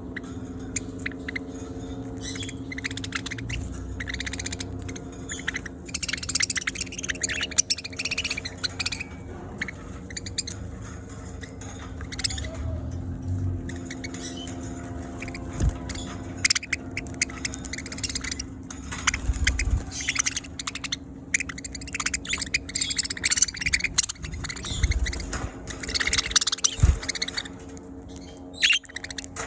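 Budgerigars chirping and chattering in a continuous, irregular stream of short, high calls, over a steady low hum.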